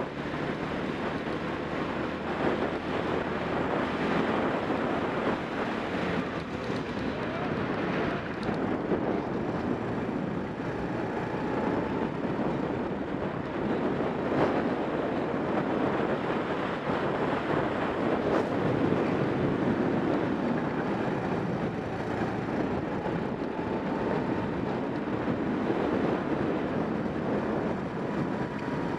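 Racing kart engine running at speed, heard from an onboard camera and largely covered by heavy wind noise on the microphone; a faint engine note rises and falls as the kart goes through the corners.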